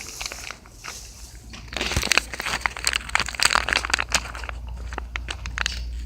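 Crinkling, crunching handling noise with many small clicks, loudest from about two to four and a half seconds in, then thinning to scattered clicks.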